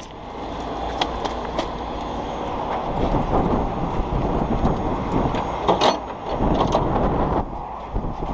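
Heavy tow truck's diesel engine running with a steady low rumble that builds over the first few seconds, with a few sharp metal clanks.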